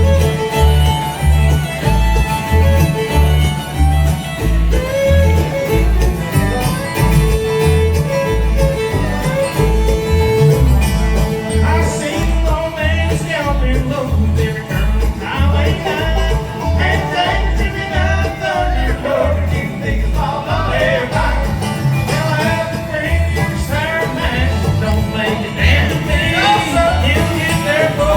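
Bluegrass music: a fiddle plays the lead over guitar, with a bass line pulsing steadily.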